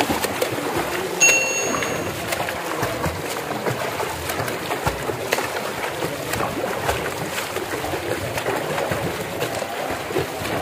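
Water splashing and sloshing in open water, with a short high beep about a second in.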